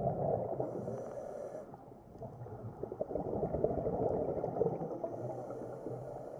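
Underwater sound of a scuba diver breathing through a regulator: bubbly, gurgling exhalations that swell twice, with a short high hiss about a second in and again near the end.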